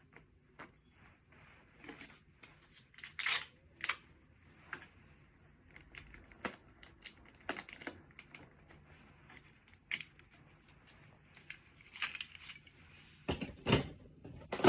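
Scattered rustling and light clicks and knocks of items being handled and arranged by hand, louder twice: around 3 seconds in and again near the end.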